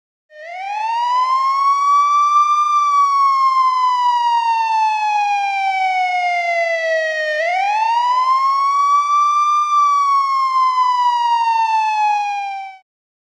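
Police siren sounding a slow wail. Two long cycles, each rising for about two seconds and then falling slowly for about five, cutting off near the end.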